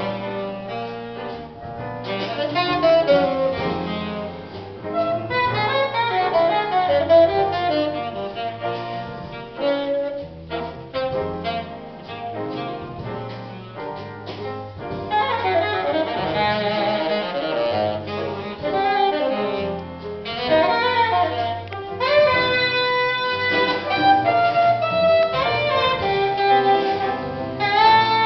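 Live jazz quartet: a saxophone plays a solo line of quick, changing notes over grand piano, upright double bass and drum kit.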